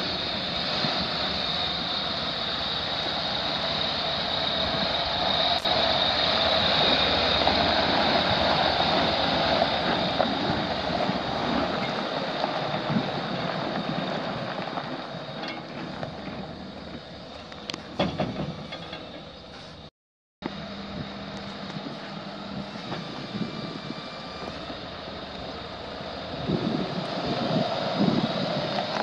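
Semi truck's 12.4-litre inline-six diesel engine running steadily, with a high whine over the engine noise. The sound drops out completely for a moment about two-thirds of the way through.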